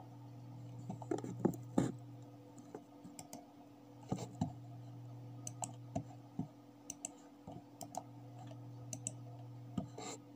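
Computer mouse buttons clicking, scattered single clicks and some quick pairs, over a steady low hum.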